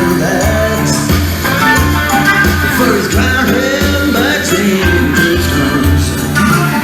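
A song with singing, guitar and a steady thumping bass beat, played back from cassette on a Tascam 122 tape deck.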